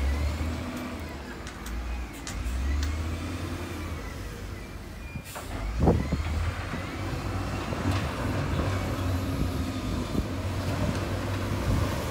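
Heavy earthmoving machine's diesel engine running under working load, its low rumble rising and falling, with a loud sharp knock about six seconds in and a smaller one about two seconds later.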